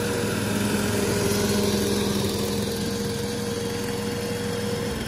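Honda engine of a reel lawn mower running at a steady high speed. Its pitch drops right at the end as the engine slows.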